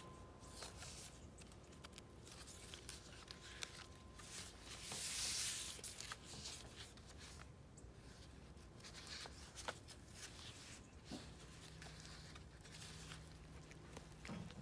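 Soft paper rustling and crinkling as the vintage-paper pages and tucked flaps of a handmade junk journal are handled and turned, with a louder swishing rustle about five seconds in.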